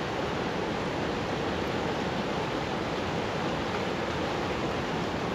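Steady rush of a fast-flowing mountain river running over rocks and rapids.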